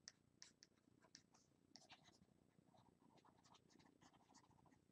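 Near silence, with faint irregular taps and short scratches of a stylus writing by hand on a tablet screen.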